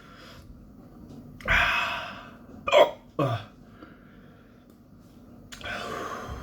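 A man hiccuping from the burn of a very hot chili pod: two short sharp hiccups close together about three seconds in. Loud rushing breaths out come about a second and a half in and again near the end.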